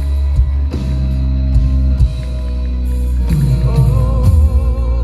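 Live rock band playing loud through a concert PA, with heavy bass and a male vocalist. From about four seconds in he holds a sung note with vibrato.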